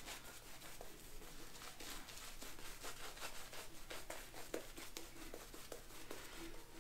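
Mulcuto slant safety razor scraping through lathered stubble in a run of short, scratchy strokes.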